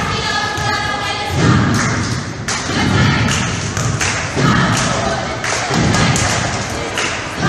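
Basketball game in a gym: repeated thuds of the ball and feet on the court, with crowd voices and some chanting around them.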